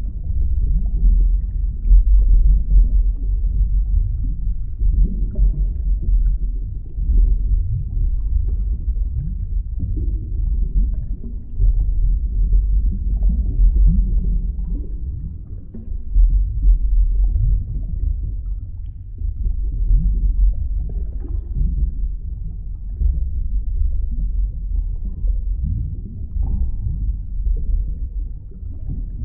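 Underwater ambience: a steady low rumble with frequent small bubbling sounds, the sound of an aquarium heard underwater.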